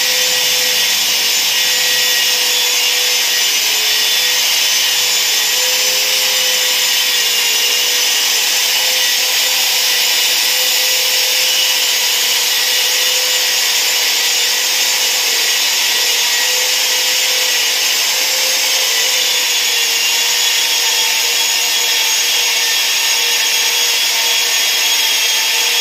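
Two handheld electric polishers running steadily, their pads grinding over a wet marble tabletop: a constant motor whine with a harsh scraping hiss, the pitch wavering slightly as the pads are pressed and moved.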